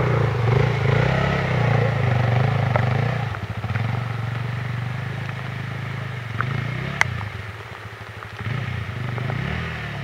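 Off-road trail motorcycle engine revving up and down as a rider works the bike through slippery mud, loud for the first few seconds, then fading, and rising again near the end. A sharp click about seven seconds in.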